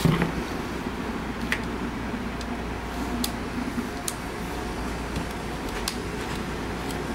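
A few small clicks as the back cover of a Wacom Cintiq Companion 2 tablet is pressed along its edge back onto the frame, its clips snapping into place, over a steady low hum.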